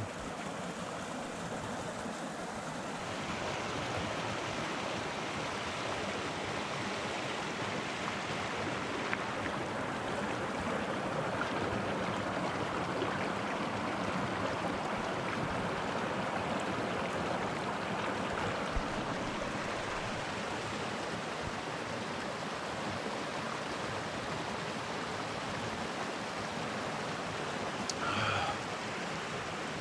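Rushing mountain stream running steadily.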